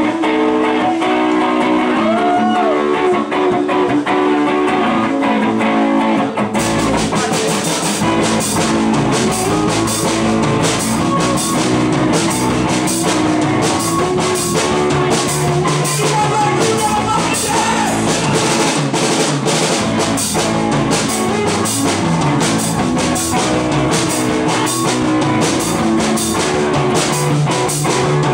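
Live rock band playing, recorded from within the audience. A guitar plays alone at first, then the drum kit with cymbals comes in about six seconds in and the band plays on together at a steady beat.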